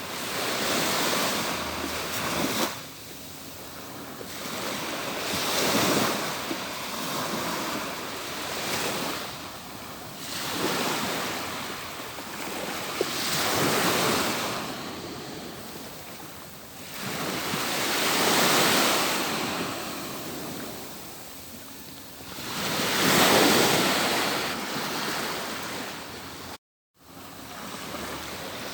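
Atlantic Ocean surf rolling onto a beach. Each wave swells up and washes back about every four to five seconds. The sound drops out completely for a split second near the end.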